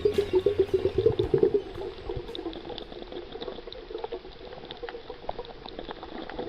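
Water bubbling: a dense, fast bubbling for the first second and a half, then quieter steady bubbling with small scattered clicks.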